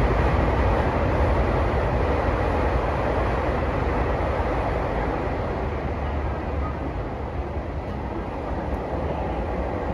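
Steady running noise of a Tokyu 3020 series electric train heard inside the car: a dense rumble of wheels on rail and car body, easing slightly quieter over the seconds.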